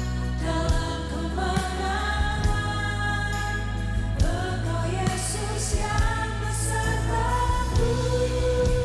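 Christian worship music: a band playing a praise song, with voices singing over a steady bass and occasional drum hits.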